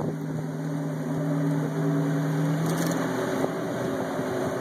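A boat's engine running steadily over rushing water, its hum shifting in pitch about three seconds in.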